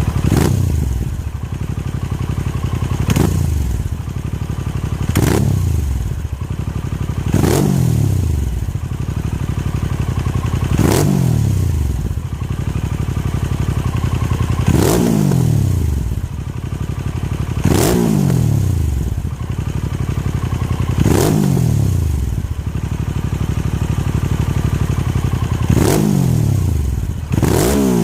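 Harley-Davidson Sportster S's Revolution Max 1250T V-twin idling, blipped about ten times: each rev snaps up sharply, then falls back to idle over about a second.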